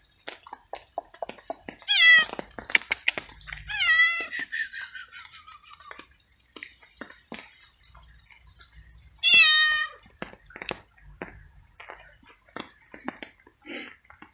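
Stray tabby cat meowing three times while it eats, the second meow long and falling in pitch. Many short sharp clicks and taps sound between the meows.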